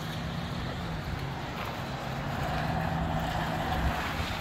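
Gusty wind and rain rushing steadily, with a low motor hum running underneath and a faint higher tone joining about halfway through.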